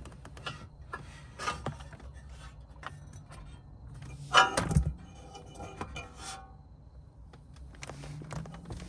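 Clicks, rattles and scrapes of plastic trim, an air duct and wiring being handled against a bare metal dashboard support beam in a stripped car interior, with one louder knock-and-clatter about halfway through. A low steady hum runs underneath.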